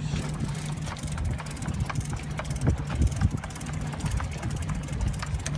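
Boat engine running steadily, with wind on the microphone and scattered short knocks.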